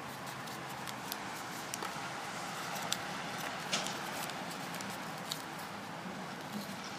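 Origami paper rustling and crinkling as hands fold and crease it, with irregular sharp crackles.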